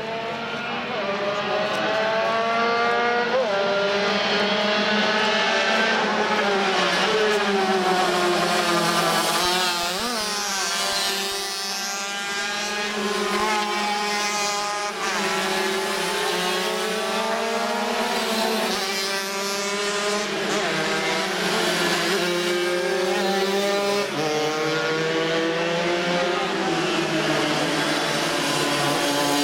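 Several classic racing motorcycles passing at speed, their engines running high and overlapping, rising and falling in pitch as the bikes accelerate and back off.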